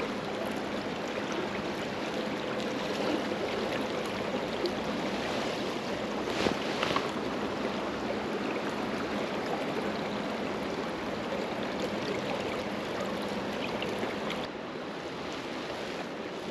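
Steady rush of river water running over a shallow run, dropping a little in level near the end.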